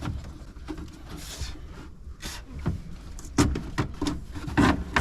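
Plastic cab trim and a control panel being worked loose from a tractor's cab ceiling: rubbing and scraping, then a string of irregular knocks and clicks.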